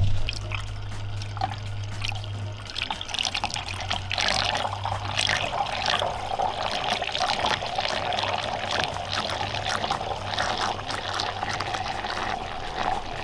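Water churning and splashing in a glass beaker as the impeller of a HEIDON Three-One Motor benchtop stirrer spins it into a vortex, with a steady tone from the running stirrer underneath.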